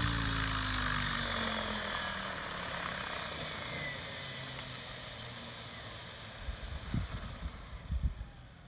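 Mikado Logo 800 brushless electric RC helicopter's motor and main rotor spooling down after landing: a steady whir that falls in pitch and fades away. A few short low thumps come near the end.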